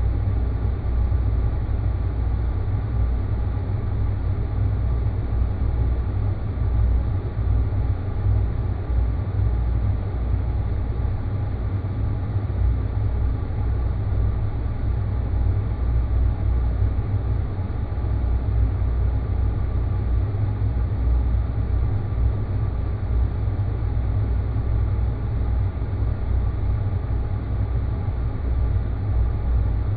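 A steady, deep rumbling drone of a designed sci-fi space-planet ambience, with faint steady tones above the rumble and no change throughout.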